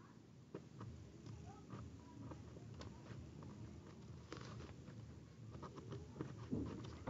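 Faint, irregular scratching and light ticks of a craft knife (cutter) blade cutting through a sheet of paper on a tabletop.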